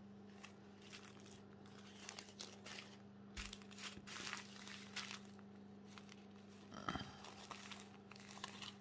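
Faint crinkling and rustling of small plastic bags of diamond-painting drills being handled, in short scattered spells, over a steady low hum.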